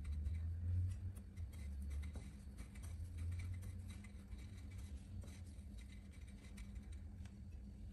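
Fingers rolling a sweet ball in a bowl of desiccated coconut: faint soft scratching and light ticks of the flakes, with a low rumble of handling in the first few seconds.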